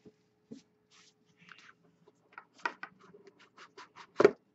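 Cardboard trading card box, a Panini Zenith hockey box, being handled and opened: light scrapes and small taps of cardboard, with one sharper knock about four seconds in.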